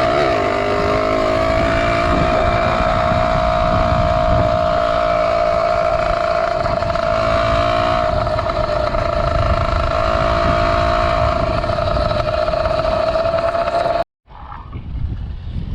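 Zeda 80 two-stroke motorized-bicycle engine running at steady high revs while cruising. It cuts off abruptly near the end, replaced by wind noise on the microphone.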